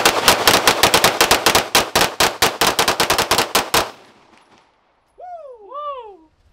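A long burst of rapid gunfire, about eight shots a second for nearly four seconds. After a short pause come two brief tones that each rise and then fall in pitch.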